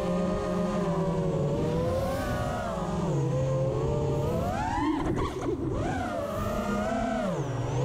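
Motors and props of a 5-inch FPV freestyle quadcopter (Hurricane 2207 2500kv motors, Gemfan 5152 props) whining in flight, the pitch rising and falling with the throttle. About five seconds in the whine drops and goes rough and choppy for a moment during a hard turn, then climbs again, and it dips once more near the end.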